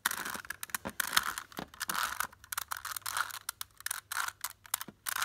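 A 3x3 Rubik's Cube being twisted by hand: its plastic layers turn in quick clattering clicks and rasps, in bursts with short pauses between moves.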